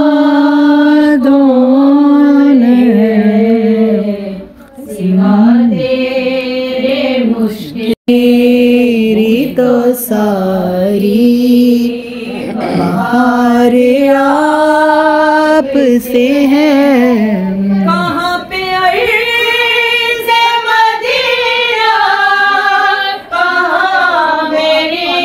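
A woman's solo voice singing a naat, a devotional song in praise of the Prophet Muhammad, unaccompanied, in long held notes that bend and waver, with short breaks between phrases.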